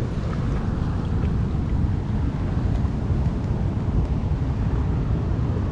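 Steady low rushing noise of fast-flowing river water below a dam spillway, with wind buffeting the microphone.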